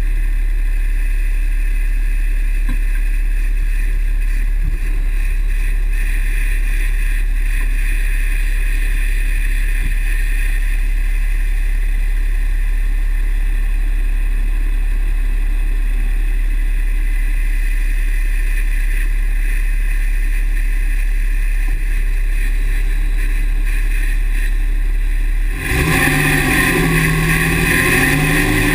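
2009 Dodge pickup's 6.7 Cummins inline-six turbodiesel running with a steady drone and a faint steady higher tone. Most of the way through, the sound changes abruptly to louder tones that waver up and down in pitch.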